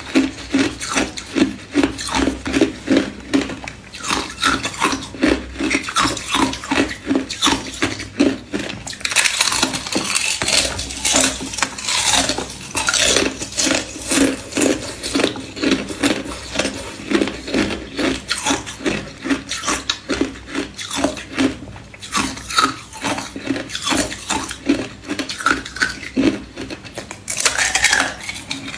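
Thin, clear ice being bitten and chewed: a rapid run of crisp crunches and cracks, several a second.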